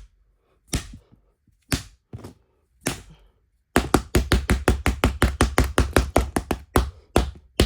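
Sharp taps and knocks of a hand tool striking an iPhone 4 while working its back off. A few spaced strikes come first, then from about four seconds in a fast run of about five a second, each with a dull thud.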